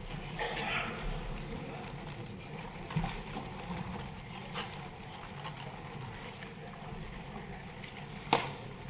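Steady room noise with a brief faint murmur of voices near the start, broken by a few sharp clicks or knocks: one about three seconds in, one about four and a half seconds in, and a louder one near the end.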